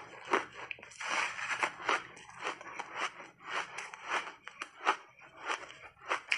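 Shaved ice being chewed right up against the microphones: quick, irregular crunches, two or three a second, as the frozen mouthful breaks between the teeth.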